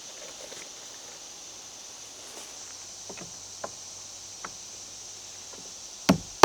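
A few seconds of quiet with a faint steady high hiss and a few light taps, then near the end a hammer starts driving a nail into green lumber siding: two quick, sharp blows.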